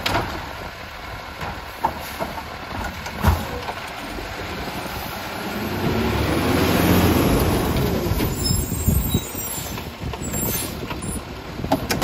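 Side-loading garbage truck driving up and stopping. Its diesel engine grows louder as it draws close over the middle seconds, and the air brakes sound as it comes to a halt.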